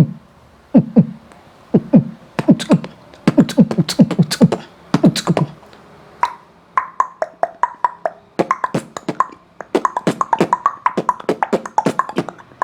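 Beatboxer making sound effects with the mouth. For about the first six seconds it is a run of short, low notes that each drop in pitch. After that comes a faster string of sharp clicks, many with a brief higher note.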